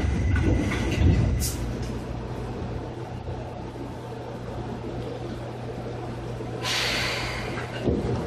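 Inside a Seibu 2000 series electric multiple unit: a steady low hum from the train, with a burst of compressed-air hiss lasting about a second, some seven seconds in.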